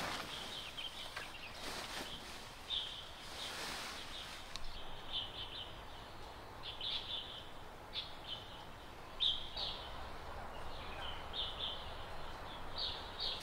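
Small birds chirping in woodland: short, high calls repeating every second or so. There is rustling during the first few seconds.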